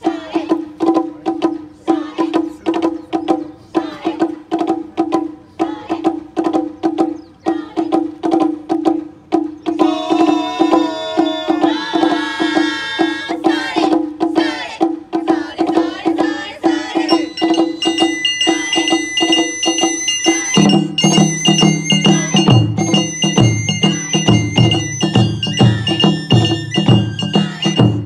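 Japanese festival music from a taiko ensemble with a bamboo flute: a quick, even beat of drum strikes with a melody above it. About twenty seconds in, the big taiko come in with a deeper, heavier beat under long held flute notes.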